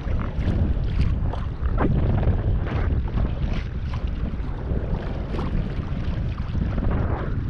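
Wind buffeting the microphone in a steady low rumble, with small waves splashing and slapping against the kayak's hull.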